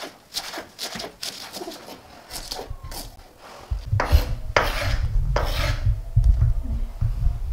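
Chef's knife cutting spring onion on a wooden cutting board: a quick run of light knife taps as it slices, then heavier, faster chopping with a low thudding from about four seconds in, and a few scraping strokes of the blade across the board.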